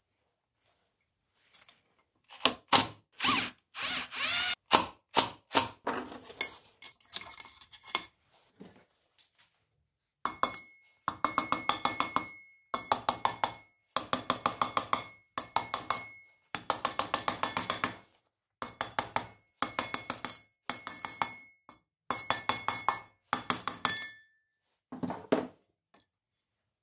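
A mallet repeatedly striking the cast aluminium end plate of a bench grinder motor to drive the plate off the armature and its bearing. The blows come irregularly at first, then as fast, even runs of taps, several a second, with a faint ringing note. A few last knocks come near the end.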